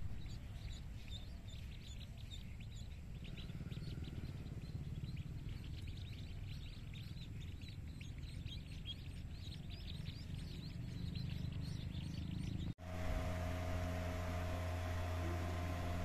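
A crowd of ducklings peeping, many short high falling calls overlapping constantly, over a low rumble. About 13 s in the sound cuts abruptly to a steady hum.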